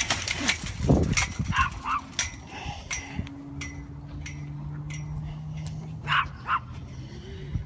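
A dog barking: a quick run of short barks in the first couple of seconds, then two more about six seconds in.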